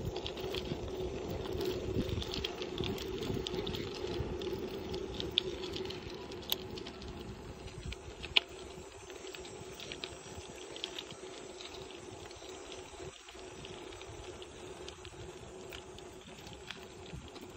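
Bicycle rolling along a paved path: a steady tyre hum with many small scattered clicks and rattles, and a few sharper ticks in the middle.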